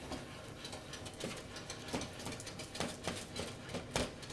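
Creamed cabbage cooking in a pan on the hob, with butter just added: a quiet, irregular crackle of small sizzling pops. A few louder clicks stand out near the start, about two seconds in and about four seconds in.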